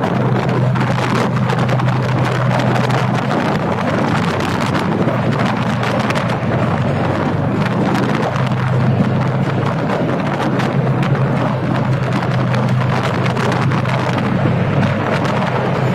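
Diesel locomotive running through a rock tunnel, heard from beside the cab: a steady low engine hum under dense wheel-and-track clatter and wind on the microphone. The noise gets louder at the start, as the train enters the tunnel.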